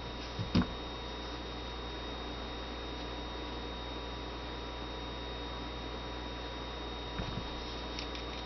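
Steady electrical hum, with a couple of light clicks about half a second in and a few fainter ticks near the end from small steel pistol parts being handled.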